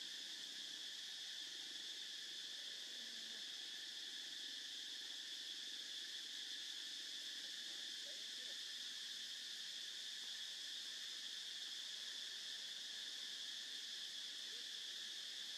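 Steady chorus of forest insects: a continuous high-pitched drone that holds level without a break.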